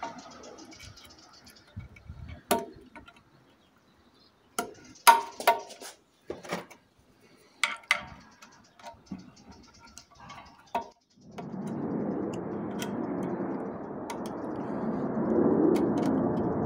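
Small metal parts of a 1.3 Multijet engine's vane oil pump clinking and tapping as they are handled, in scattered light knocks. From about eleven seconds in, a steady rushing noise starts and keeps going.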